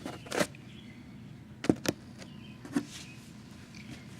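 A few short clicks and knocks over a quiet background, two of them close together about a second and a half in.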